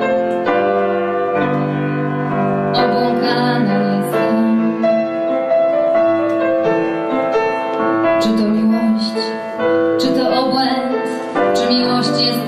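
Grand piano playing a slow ballad accompaniment, with a woman's singing voice holding long notes over it.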